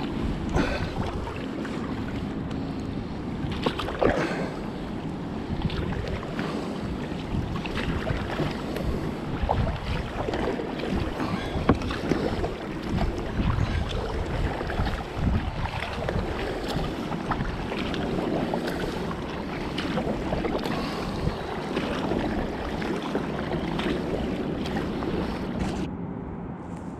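Kayak on a river: water splashing and rushing around the hull and paddles, with wind buffeting the microphone.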